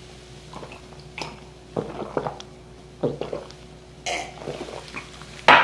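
Two men gulping down glasses of beer: a string of short swallowing gulps, with a louder sound near the end as they finish.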